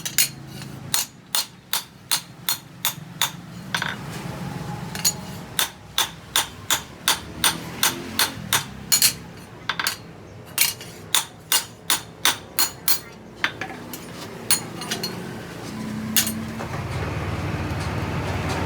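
Hammer blows on steel in a steady rhythm of about three ringing strikes a second, forging a cleaver blade; the blows thin out and stop, and a steady low rumbling noise comes in near the end.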